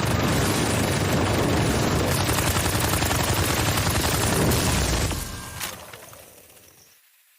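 Anime sound effect: a dense, rapid barrage of gunfire-like impacts that starts abruptly, holds steady for about five seconds, then fades away over the next two.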